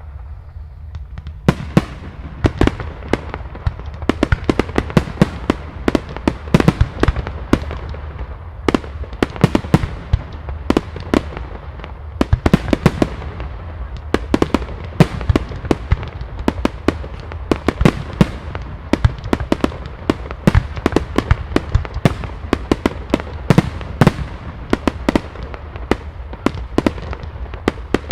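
Fireworks display: a dense barrage of sharp bangs from bursting aerial shells, several a second, starting about a second and a half in, over a steady low rumble.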